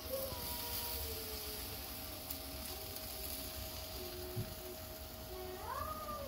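Domestic cat meowing faintly about a second in and again near the end, over a steady hum and hiss.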